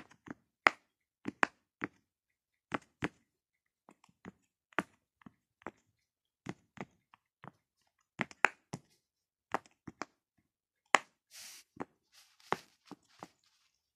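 Silicone pop-it fidget toy being popped bubble by bubble with a fingertip: a string of sharp little clicks at an uneven pace, one or two a second, sometimes in quick pairs.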